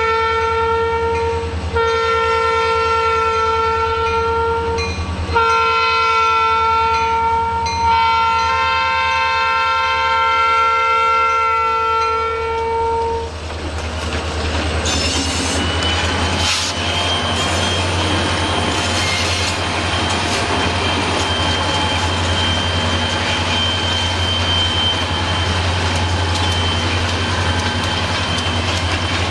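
Freight locomotive horn blowing the crossing signal: the end of one long blast, then two more blasts and a final long one that stops about 13 seconds in. Then the train's EMD SD40-2 diesel locomotives rumble past, with wheels clacking over the rails and a thin steady high whine.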